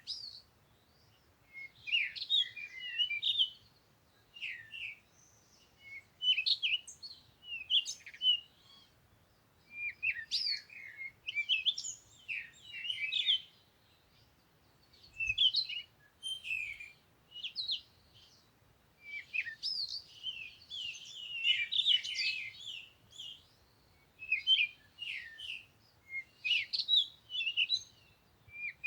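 Small birds chirping and twittering in irregular bursts, several high calls overlapping, with brief pauses between bouts.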